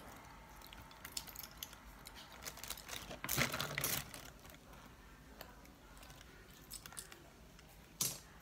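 Faint scattered clicks and crinkly rustles of a toddler handling and eating food with her fingers. There is a louder rustle lasting under a second about three seconds in, and a short sharp sound about eight seconds in.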